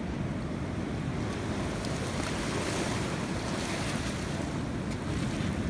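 Sea waves washing and splashing against the pier pilings, with wind rumbling on the microphone. The wash swells to a louder hiss in the middle.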